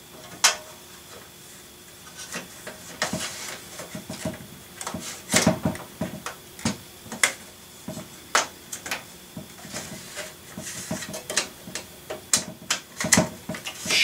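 Drive caddy and drive knocking and clicking against a metal desktop PC case as they are pushed and worked into the drive bay: a run of irregular sharp clicks and knocks, the sharpest about half a second in.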